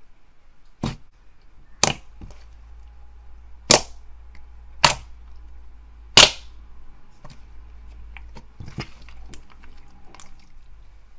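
Thick white slime kneaded and pressed by hand, its trapped air pockets popping with sharp snaps: about five loud pops in the first six seconds or so, the loudest just past the middle, then softer clicks and crackles.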